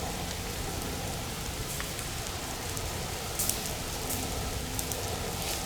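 Low wildfire flames burning through forest-floor litter: a steady crackling hiss with a few small pops.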